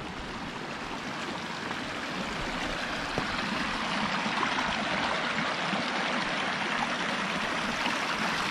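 Shallow rocky creek rushing and trickling over stones in a steady flow of water, growing a little louder in the first few seconds.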